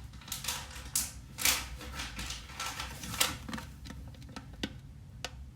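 Small plastic beads clicking and clattering in an irregular patter, thinning out towards the end.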